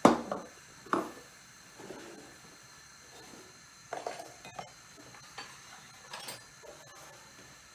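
Kitchen dishes and utensils being moved and set down on a counter: a few separate clinks and knocks, the loudest right at the start and about a second in, with a few more later.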